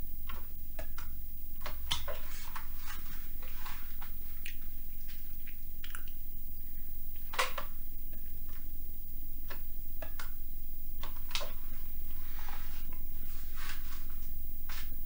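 Irregular sharp clicks and taps, a dozen or so, as a Trojan light pen is pressed and worked against a CRT monitor screen to pick colours and fill areas of a drawing, over a low steady hum.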